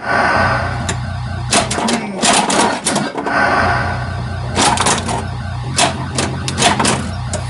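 1982 Bally Vector pinball machine in play: clusters of sharp mechanical clatter from the flippers, solenoids and the ball striking the playfield, over the game's pulsing electronic background sound.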